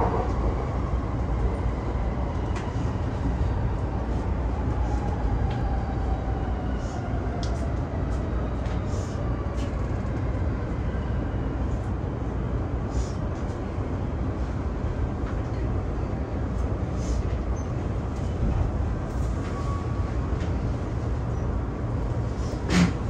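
E231 series electric train heard from inside: a steady rumble of the running gear with a thin traction-motor whine that slowly falls in pitch as the train slows. Scattered clicks come from the rails, and there is one short loud knock near the end.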